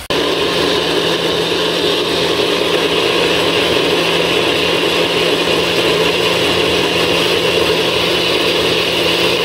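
NutriBullet personal blender switching on suddenly and then running steadily, puréeing canned sweet corn kernels into a thick batter for corn fritters.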